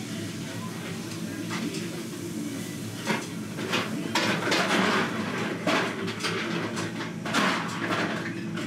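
Tableware clattering: utensils knocking and scraping against dishes a number of times, most thickly in the middle, over a steady low hum.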